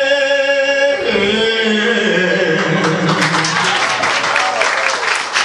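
A man sings the long held final note of a ballad into a microphone, without accompaniment; the note ends about a second in, voices follow, and the audience breaks into applause about three seconds in.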